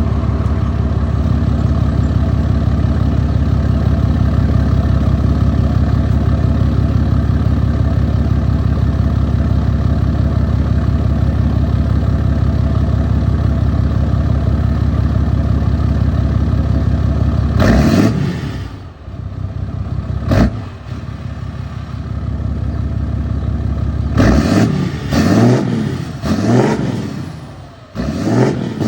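6.7 Cummins inline-six turbo-diesel, its exhaust dumped before the axle through an 8-inch tip, idling steadily for about eighteen seconds. Then it is revved: one sharp rev, a quick blip, and a run of several revs near the end, each rising and falling back to idle.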